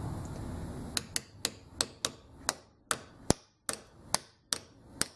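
Steady light taps on a steel helicopter main shaft used as a drift, driving a small bearing out of a brushless motor's aluminium end housing, starting about a second in and repeating two to three times a second.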